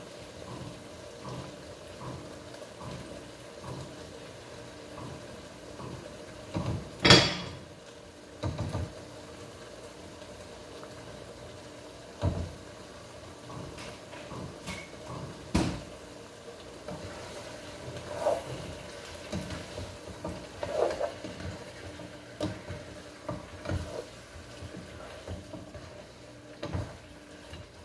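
Kitchen cooking sounds: scattered knocks and clinks of pots, packets and utensils being handled over a steady low hum, with one sharp clatter about seven seconds in.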